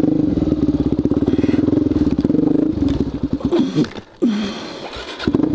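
Suzuki DRZ400SM's single-cylinder four-stroke engine pulling hard on a rocky climb, then stumbling and stalling about four seconds in. The electric starter cranks it for about a second, and the engine fires back up near the end.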